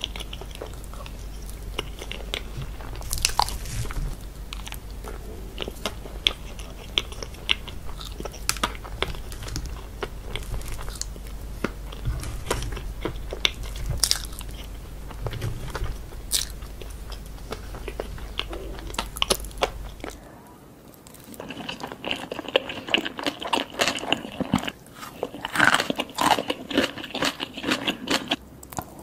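Close-miked chewing of a layered mousse cake, with many sharp mouth clicks over a low steady hum. About two-thirds of the way through it cuts to a different recording of sushi being chewed, with a denser run of wet mouth sounds.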